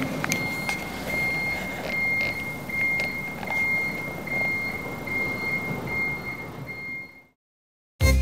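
Automatic car-wash machine running with a rough mechanical rush, over which a high warning beep repeats roughly twice a second. It all stops abruptly about seven seconds in.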